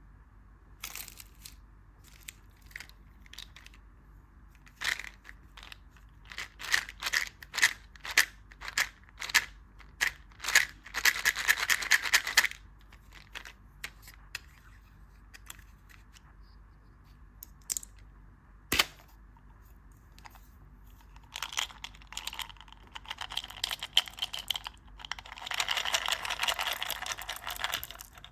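Candy wrapper packaging being handled and torn open: crackling and tearing in scattered bursts, with a longer stretch of tearing about twelve seconds in and more near the end.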